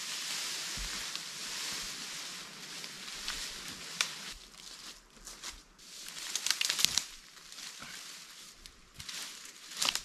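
Dry brush and branches dragged over leaf litter with a steady rustle, then dry twigs cracking and snapping in a string of sharp snaps as the pile is handled, the loudest near the end.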